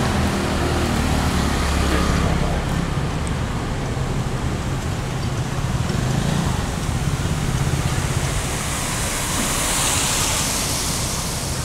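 Street traffic: a vehicle engine hums close by for the first couple of seconds, then passing traffic goes on steadily, with a hiss swelling near the end.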